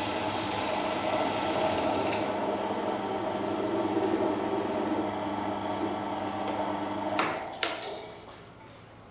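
Pillar drill running at its lowest speed, its motor giving a steady hum while the bit is slowly fed into the workpiece to bore a hole. About seven seconds in come two sharp knocks, and the machine then dies away.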